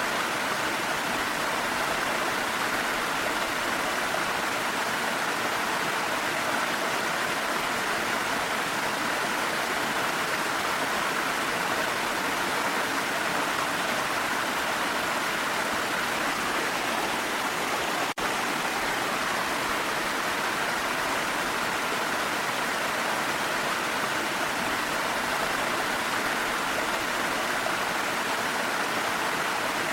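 Steady rushing water of a waterfall, an even unbroken roar of flow, with a momentary dip in level about eighteen seconds in.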